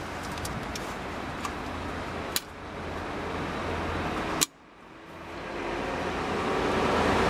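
Hands handling the wiring and bulb plug of a truck's H4 headlight, giving small clicks, with a sharp click about two and a half seconds in and a louder one about four and a half seconds in. A steady low hum and hiss runs underneath.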